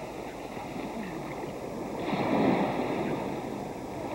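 Small waves breaking and washing in the shallows, a steady rushing that swells about two seconds in and eases again near the end.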